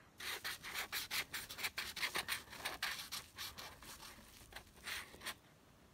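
Quick back-and-forth scribbling of a pink colouring tool on paper, a dense run of rapid scratchy strokes that stops about five seconds in.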